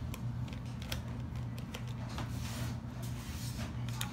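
Small screwdriver turning screws out of a plastic laptop case, making light scraping and scattered small clicks over a steady low hum.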